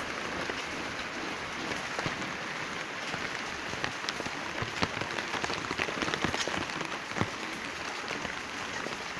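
Steady rain falling on plants, an even hiss with individual drops tapping irregularly.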